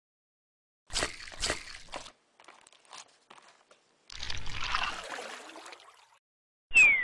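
Splashing and pouring liquid sound effects in separate bursts: two sharp splashes, faint drips, then a longer swelling splash. Near the end comes a sharp hit with a quick falling tone.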